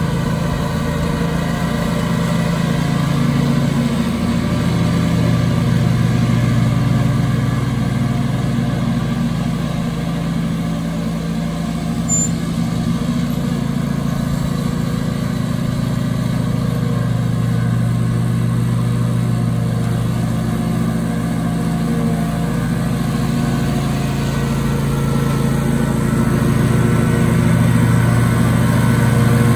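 Engine of a 36-inch Husqvarna belt-drive walk-behind commercial mower running steadily under load while cutting tall, thick overgrown grass. It grows a little louder near the end as the mower comes closer.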